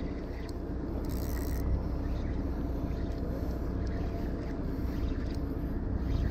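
Steady low rumble of a fishing boat at sea, engine and water noise, with a faint steady tone. A brief high hiss comes about a second in.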